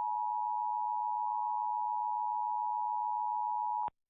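Emergency Alert System attention signal, the steady two-tone alert (853 and 960 Hz sounded together) broadcast on WABC 770 AM to open a national EAS test, cutting off abruptly near the end.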